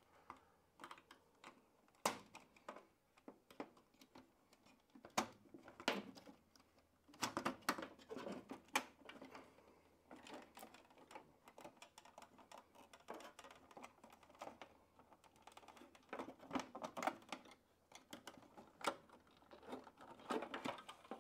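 Plastic clips on a tumble dryer's control circuit board being pressed in with a small screwdriver while the board is levered off its plastic facia panel: irregular sharp plastic clicks and scrapes, busier about a third of the way in and again near the end.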